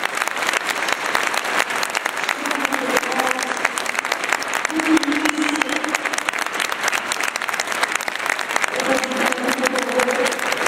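Audience applauding steadily, with a few short voices over the clapping.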